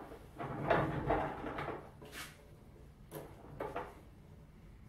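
A long steel piano hinge being handled and set against the edge of a plywood cabinet: a spell of rubbing and knocking in the first two seconds, a short high clink about two seconds in, then two short knocks near the end.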